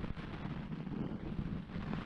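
Steady, muffled rushing rumble of moving water heard through a camera's housing held underwater.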